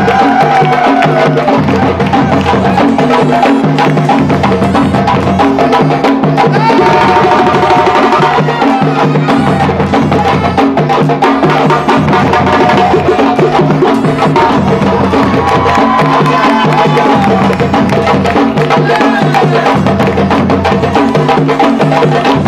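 West African drum ensemble playing: djembes beat out a fast, dense rhythm over deeper drum notes, with a melodic line gliding above it at times.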